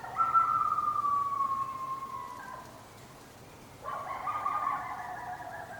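Coyote howling: two long howls, each sliding slowly down in pitch, the second starting about a second after the first ends.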